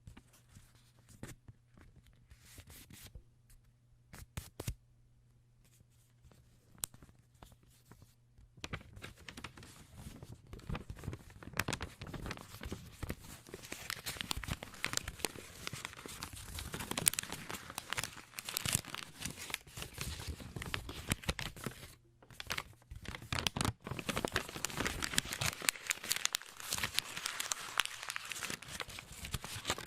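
Paper being handled, torn and crumpled. A few faint rustles come first, then from about nine seconds in a dense, continuous crackling with sharp crinkles, which pauses briefly about 22 seconds in and picks up again.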